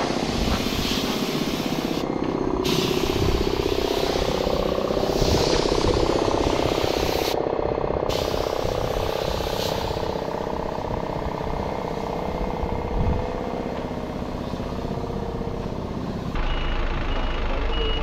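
Compressed-air paint spray gun hissing over a steady mechanical running noise, the hiss breaking off briefly twice. About 16 seconds in the sound changes to a vehicle's reversing alarm beeping at an even pace.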